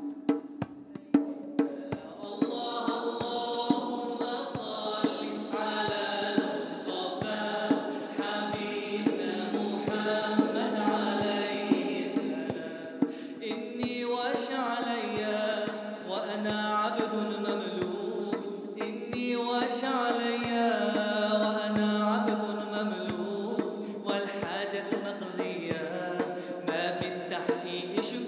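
A male singer performing a nasheed, melodic chant-like singing, over a djembe hand drum keeping a steady beat. The drum is heard alone at first, and the voice comes in about two seconds in.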